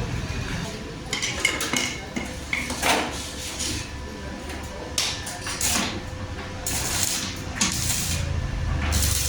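Metal clinking and clattering, a few strikes ringing briefly, with short bursts of hiss in between and a faint steady hum underneath.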